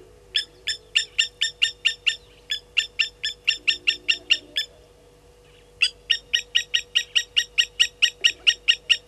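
Blacksmith lapwing giving its metallic 'tink-tink' alarm call, sharp notes at about four or five a second in three runs with short pauses between, raised at a slender mongoose.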